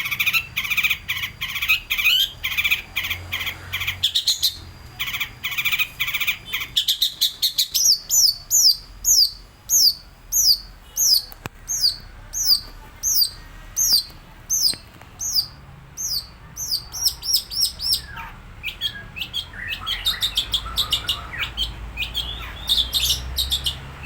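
Long-tailed shrike (pentet) singing. It opens with fast chattering trills, then gives a long run of repeated falling whistles at about two a second, and ends with mixed chattering notes.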